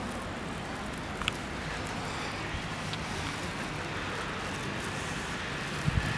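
Steady outdoor street ambience: an even rush of wind and distant traffic, with a couple of faint clicks and two low thumps near the end.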